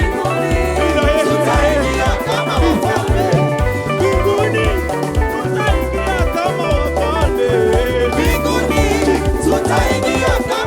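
Live praise-and-worship band playing an upbeat song, with a bass line moving under wavering melodic lines.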